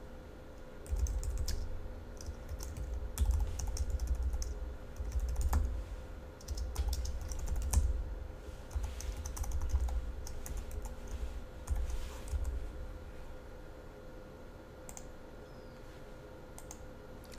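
Typing on a computer keyboard in uneven bursts of keystrokes, stopping about thirteen seconds in, followed by a couple of single clicks near the end.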